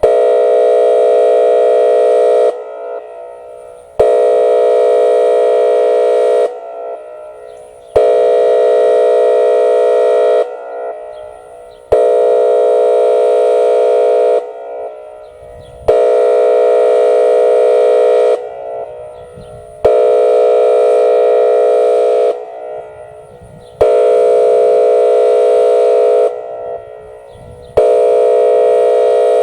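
Whelen WPS-2805 electronic warning siren sounding its full air horn signal: a loud, deep horn tone in blasts of about two and a half seconds, one starting every four seconds, each blast trailing off as an echo in the short gap before the next.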